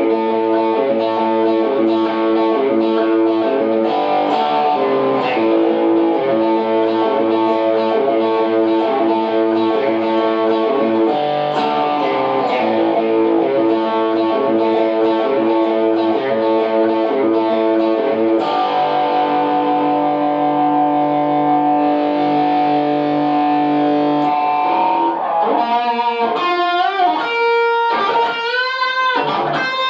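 Electric guitar through a Greg Fryer treble booster into a Vox AC30 amplifier, set back with a THD Hotplate attenuator. It plays rhythmic picked chords and notes, lets one chord ring for several seconds, then plays bent notes with vibrato near the end.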